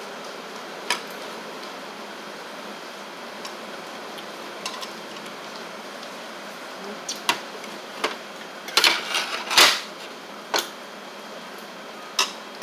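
Cutlery clinking against bowls and dishes during a meal: a few separate sharp clicks, then a quick cluster of clinks toward the end, over a steady hiss of rain.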